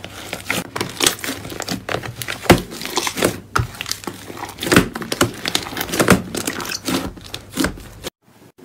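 Slime squished and kneaded by hand: a dense run of irregular wet crackles and pops as air pockets burst. The sound cuts off abruptly near the end.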